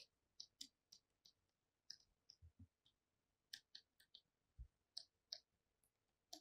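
Faint, irregular clicking and tapping of a stylus on a writing tablet as words are handwritten, several small clicks a second with a couple of soft low knocks.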